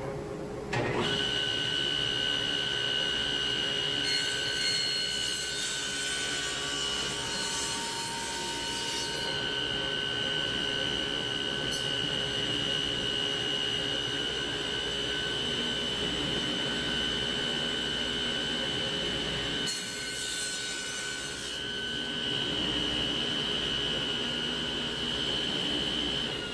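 Power saw running and cutting through wood boards, a steady high whine over the rasp of the cut. It starts suddenly about a second in and dips briefly between cuts near the end.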